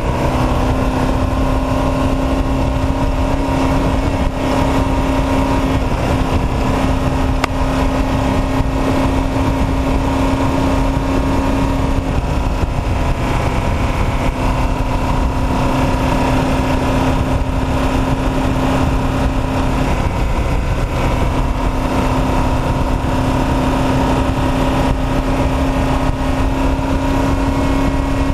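Off-road race truck's engine running hard at high, nearly constant revs, with a dense rush of wind and road noise under it. The pitch holds steady with only slight shifts, and the sound dips briefly about four seconds in.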